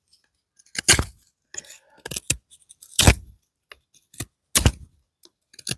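A D2-steel folding knife blade shaving curls off a stick of dead hardwood, feather-sticking: about six or seven short, sharp cutting strokes at uneven intervals of roughly a second.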